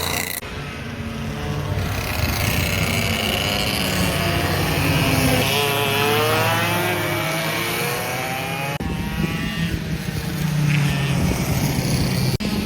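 Go-kart engines running, with karts going by whose engine pitch rises and falls in sweeps through the middle. The sound changes abruptly about a third of a second in, again about two thirds of the way through, and once more near the end.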